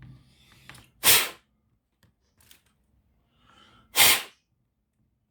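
Two short, sharp bursts of breath about three seconds apart, each after a softer intake of breath.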